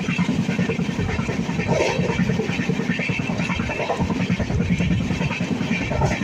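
Steady rumbling noise of a moving vehicle in motion, with no pauses or sudden events.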